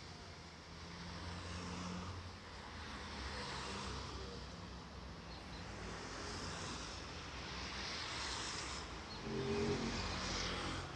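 Engines of heavy machinery and tractors running, a low steady engine drone over a broad noise, getting louder about nine seconds in.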